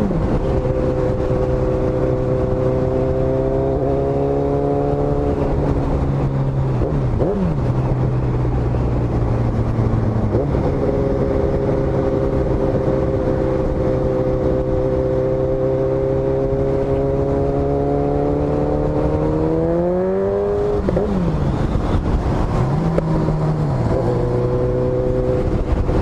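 Sport motorcycle engine running under way at cruising speed, with wind rushing over the helmet. The engine note holds steady, eases off for a few seconds, and rises as the bike accelerates about 20 seconds in.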